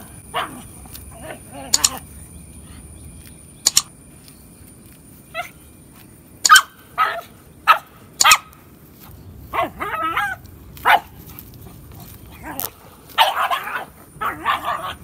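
Pug barking and yipping in short, irregular bursts, with a quicker run of barks near the end.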